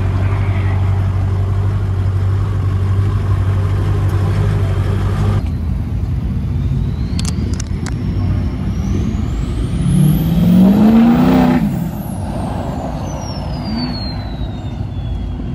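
Vehicle engine running steadily, then revving once about ten seconds in. A high whistle climbs and falls back over several seconds around the rev.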